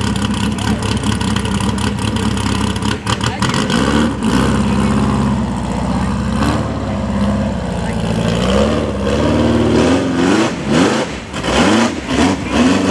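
Rock bouncer buggy's engine running steadily, then revved up and down over and over from about four seconds in, the pitch climbing and dropping with the throttle.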